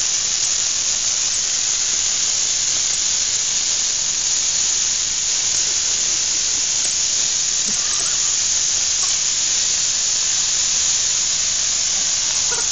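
Dry evergreen Christmas tree burning fiercely, its needles going up in a loud, steady hiss of flame.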